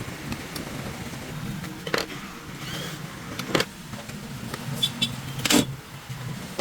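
A few sharp knocks and lighter clicks over a low steady hum: three louder knocks come about two, three and a half, and five and a half seconds in.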